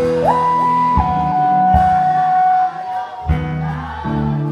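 Live band music between sung lines. A clean lead note slides up near the start, drops a step about a second in and is held for about two seconds, over bass and drum hits.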